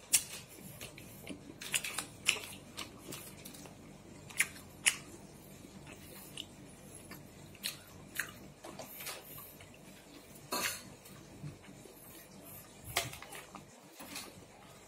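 Irregular soft clicks and crackles from fried chicken being handled and pulled apart by hand in a paper takeaway box.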